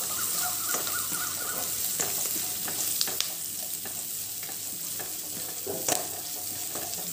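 Sliced onions sizzling steadily in hot oil in a non-stick kadai as they are sautéed, stirred with a spatula that scrapes and taps the pan a few times.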